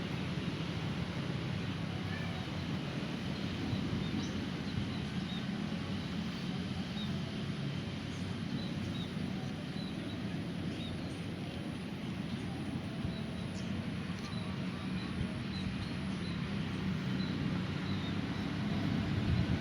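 Birds chirping in short, high, scattered notes over a steady low rumble of road traffic.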